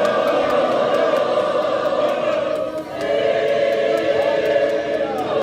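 Church choir singing a hymn in long held notes, with a short break about three seconds in before the next phrase starts.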